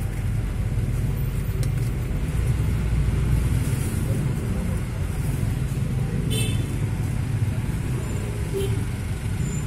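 Steady rumble of city street traffic, cars and motorbikes running on the road alongside. A short high-pitched sound cuts in briefly about six seconds in.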